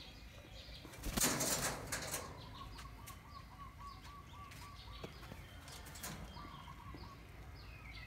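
Caged hill myna's wings flapping in a loud burst lasting about a second, about a second in, followed by a run of short, quick, evenly spaced notes at one steady pitch, which come again briefly later.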